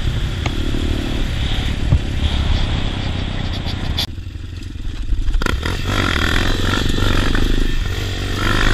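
Motorcycle engine running under way, with wind noise on the rider's microphone. The sound changes abruptly twice, about four and five and a half seconds in.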